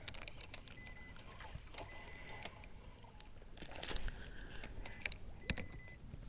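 Quiet ambience on a small boat on the water, with scattered small clicks and knocks of fishing gear being handled, and a few brief faint high beeps.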